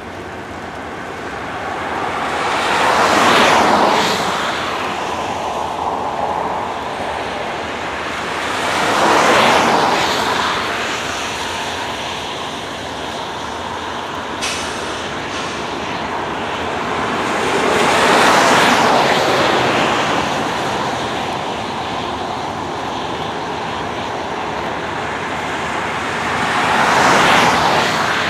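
Road vehicles passing close by four times, each a swell of tyre and engine noise that rises and fades over a few seconds. Between them runs a steady rumble from a diesel-hauled freight train of hopper cars crossing a distant steel trestle.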